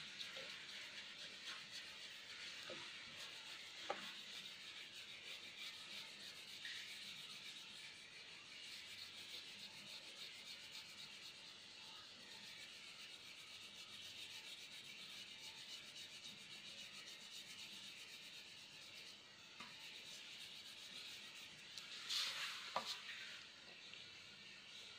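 Wax crayon rubbing back and forth across paper in faint, steady scratchy strokes as an area is coloured in. Near the end there is a louder rustle and scrape of the sheet of paper on the table.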